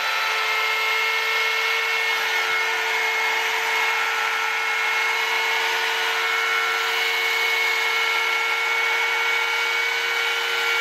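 Oregon corded electric chainsaw running at full speed off the wood, with its built-in sharpening stone pulled against the spinning chain: a steady motor whine over a grinding hiss as the stone sharpens the dulled chain.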